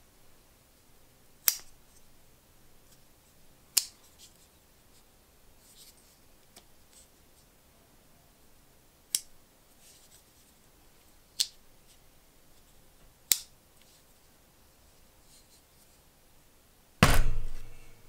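Blades of a vintage Solingen pocket knife snapping shut against the backspring: five sharp metallic clicks spaced a few seconds apart. Near the end, a heavier thump as the knife lands on a wooden workbench.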